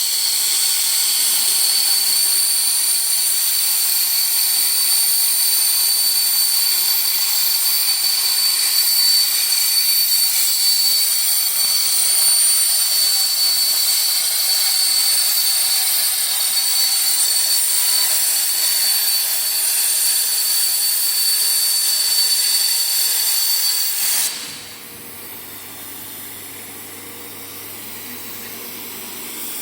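Hypertherm HPR130 plasma torch on a CNC cutting table making a test cut: a loud, steady, high-pitched hiss and whine of the plasma arc. It cuts off suddenly about 24 seconds in, leaving a quieter steady machine hum.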